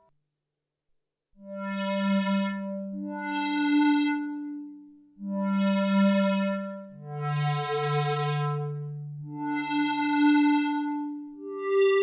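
Arturia MicroFreak synthesizer playing a slow run of sustained, bright notes through a Behringer DR600 digital reverb pedal, a new note or chord every second or two. Each one swells in and fades into the next. It starts about a second and a half in, after a short silence.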